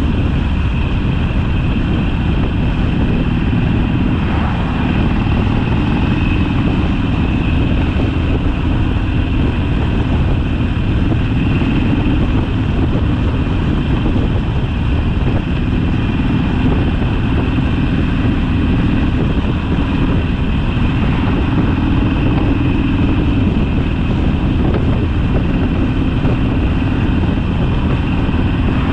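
Harley-Davidson Sportster's air-cooled V-twin engine running steadily while the motorcycle is ridden along the road, its engine note shifting slightly a few times.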